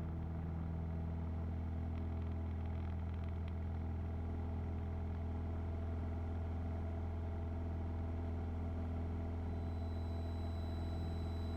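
Steady drone of a Piper Warrior's four-cylinder piston engine and propeller heard inside the cockpit, a deep even hum with an unchanging pitch, the engine at climb power just after take-off.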